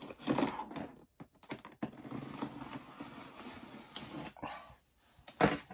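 A box-cutter knife slicing through packing tape and cardboard along the top of a shipping box: a few sharp clicks, then a ragged scraping cut lasting a couple of seconds. A short, louder sound near the end.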